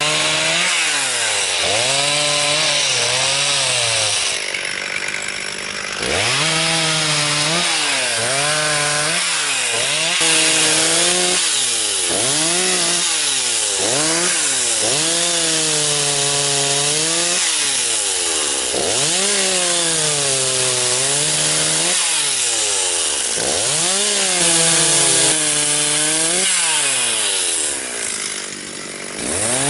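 Two-stroke chainsaw cutting wood. Its engine pitch sags under load in the cut and climbs back again and again, easing off briefly about five seconds in and again near the end.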